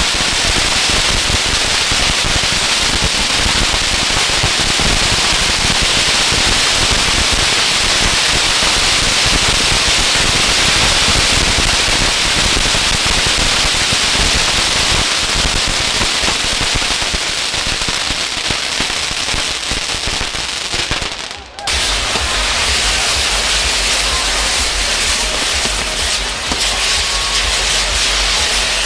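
Ground fireworks burning: a dense, continuous crackling and hissing that drops out briefly about three-quarters of the way through, then carries on with a deeper rumble underneath.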